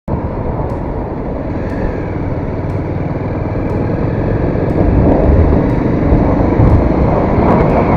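Motorcycle riding along a road: the engine's running and the wind and road noise blend into a steady rumble that grows gradually louder.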